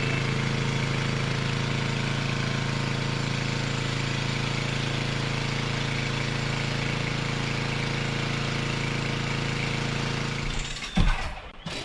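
An engine running steadily at a constant speed, which cuts off near the end, followed by a few knocks.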